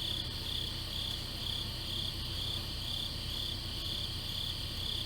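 Crickets chirping: a steady high trill with a second chirp pulsing about twice a second, over a low steady hum.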